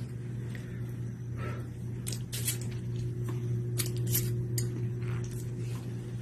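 Steady low hum of the small tiled bathroom, with a few soft clicks and rustles as the handheld phone is moved and handled, clustered in the middle seconds.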